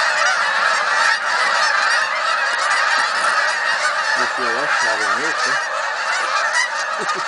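A large flock of Canada geese honking, many calls overlapping in a dense, unbroken chorus as the birds fly in and land.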